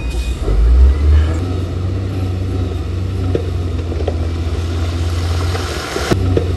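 Heavy diesel engine of earthmoving machinery (a bulldozer or dump truck) running steadily with a low drone, louder for a moment about a second in. A sharp knock sounds near the end.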